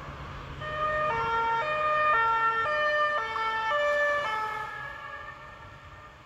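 French two-tone emergency-vehicle siren alternating between two notes about twice a second. It swells about a second in as the vehicle goes by, then fades away over the last couple of seconds, over a low traffic rumble.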